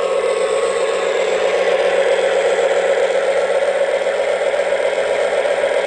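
Lionel Lion Chief Mystery Machine FT diesel toy train running along the track, a steady mechanical whir of its motor, gears and wheels on the rails.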